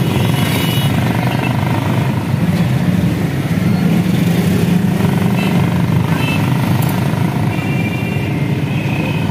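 Small motorcycle-type engine running steadily while riding through busy street traffic, with the hum of other motorcycles and rickshaws around it. A few short high tones, like horn beeps, come near the end.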